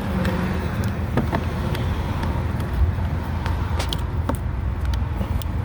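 Scattered light clicks and small rattles of plastic wiring-harness connectors being handled and pushed into an engine computer, over a steady low background rumble.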